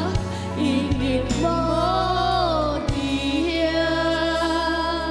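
A boy and a woman singing a slow Taiwanese Hokkien ballad over a band accompaniment, in long held phrases.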